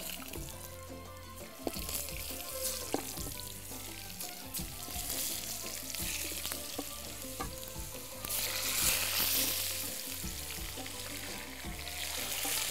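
Sliced potato rounds sizzling as they fry in a shallow pan of hot oil, with faint clicks, and louder for about two seconds from about eight seconds in.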